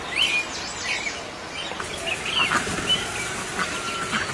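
Small birds chirping: a string of short, high calls that rise and fall quickly, over a steady hiss of outdoor background noise.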